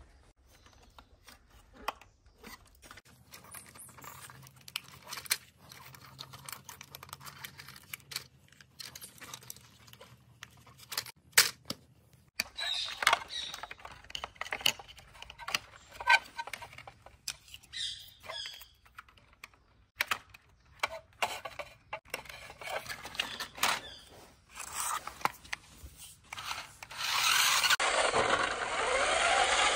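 Scattered clicks, knocks and rattles of plastic and rubber parts being handled on a toy RC army truck: tyres set down and a battery pack fitted into its battery box. Near the end a loud whir starts as the truck's small electric motor and gears drive it across the floor, its pitch gliding up and down with speed.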